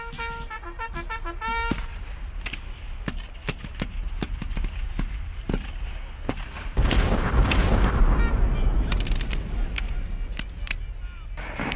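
A brass bugle call of a few short and held notes sounds over scattered black-powder musket shots for the first second or two. Then irregular musket fire crackles on, with a louder, heavier stretch and a deep rumble from about seven seconds in.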